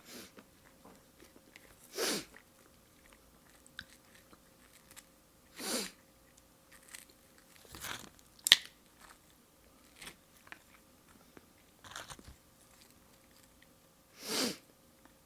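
Close-miked eating of sashimi: quiet chewing and mouth sounds, with a few short, louder noisy sounds a few seconds apart and one sharp click a little past the middle.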